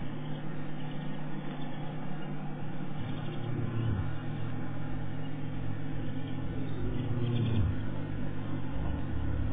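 Engine of an open safari game-drive vehicle running steadily, rising in level around seven to eight seconds in as the vehicle moves off.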